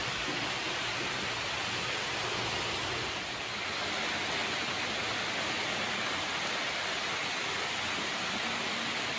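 A steady, even hiss with a slight dip about three seconds in.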